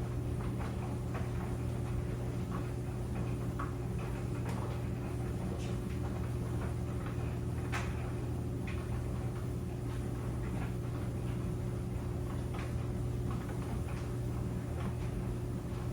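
Clothes dryer running: a steady hum from the motor and drum, with irregular light clicks and taps from the tumbling load.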